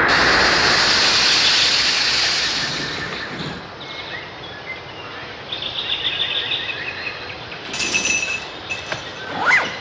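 Cartoon sound effects: a loud rushing noise that fades over the first three seconds, then short high squeaky tones and a rising squeal near the end.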